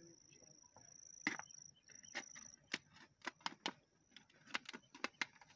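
An insect trilling high and steadily, breaking off now and then, with about a dozen sharp, irregular clicks or taps through the middle seconds that are louder than the trill.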